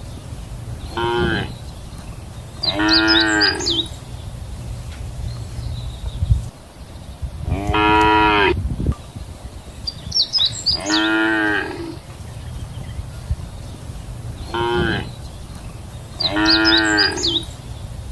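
Cattle mooing: six separate moos, some short and some drawn out over about a second and a half, over a steady low rumble.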